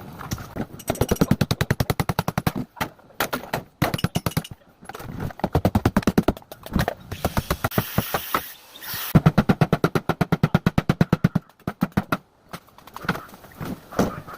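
Rapid mechanical hammering in repeated bursts of one to two seconds, well over ten strikes a second, with short pauses between bursts, as when a power hammering tool works at a fridge being scrapped.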